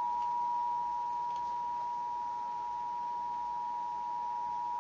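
Emergency Alert System two-tone attention signal: a steady dual tone at about 853 and 960 Hz, held without a break, the alarm that heads a broadcast emergency warning.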